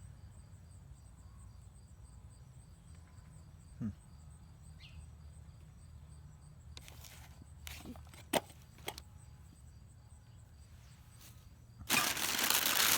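Items being handled: a few sharp clicks and knocks, then, about a second before the end, loud crinkling and rustling of wrapping as something is unwrapped.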